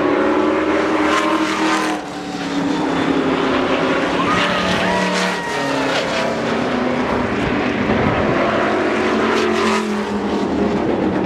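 Stock car engines running at racing speed on a paved oval. The engine pitch rises and falls as cars go by, and a car passes close near the end.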